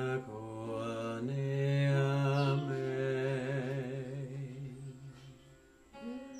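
Deep male voice chanting long, wordless held tones with a slight waver, stopping shortly before the end, where a higher held tone takes over. A brief high falling whistle-like note sounds about two and a half seconds in.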